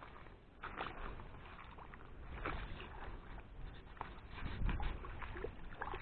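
Shallow water sloshing and splashing in irregular bursts as a person wades in through wet grass, with a few heavier low thuds from the steps, the loudest about four and a half seconds in.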